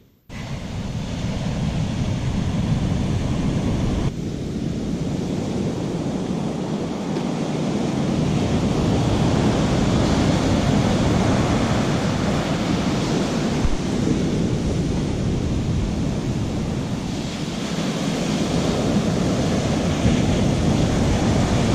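Surf breaking and washing up the sand in a steady rush, with wind on the microphone.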